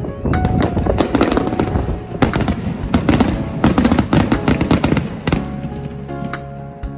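Fireworks crackling in a dense rapid run of pops over background music; the crackle stops about five seconds in and the music carries on.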